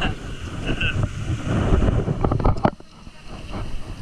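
Wind buffeting the microphone while riding a bicycle, a heavy uneven rumble with a few sharp knocks, dropping off suddenly near three seconds in.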